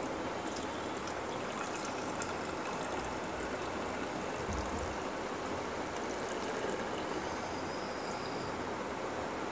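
A steady, even hiss that holds unchanged throughout.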